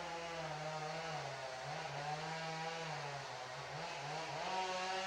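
Two-stroke chainsaw cutting into a standing tree during felling, its engine pitch sagging under load and picking up again several times.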